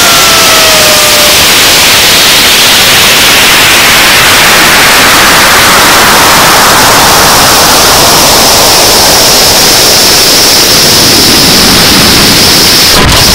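Loud, steady rush of air over a rocket-mounted camera's microphone as a high-power rocket climbs at high speed, with a high whistle coming in over the second half.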